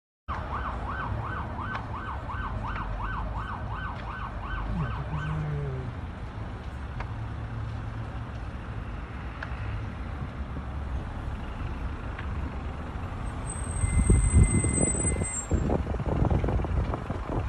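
An emergency vehicle siren in a fast yelp, rising and falling about three times a second, for the first six seconds or so, over a steady low rumble of a moving vehicle. Loud low buffeting takes over near the end.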